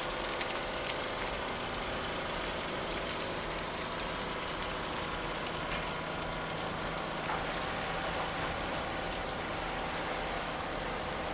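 Engine of the Falknes, a small cargo ship, running steadily as it passes close by, with a steady hiss over it.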